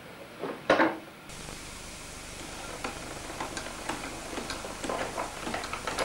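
Small wooden automaton's cam mechanism worked by hand, its loo door opening on the seated figure: a sharp knock under a second in, then light irregular clicking and scraping.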